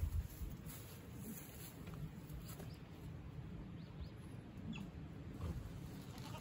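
Quiet outdoor background: a steady low rumble with a few faint, short, high chirps scattered through it. There is no clear goat bleat.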